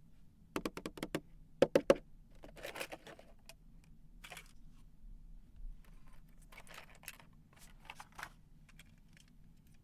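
Hands handling plastic toy pieces and packaging: a run of small sharp plastic clicks, loudest in the first two seconds, then softer scattered clicks and light rustling.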